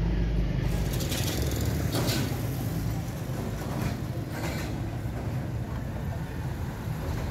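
A steady low mechanical hum, with a few sharp metal clicks and taps from hand tools working on a small motorcycle engine.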